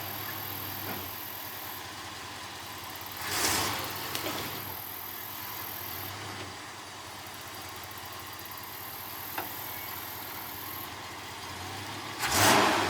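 1969 Ford F-250 engine idling steadily on its rebuilt Autolite 2100 carburetor, with two brief louder whooshing surges, about three seconds in and near the end.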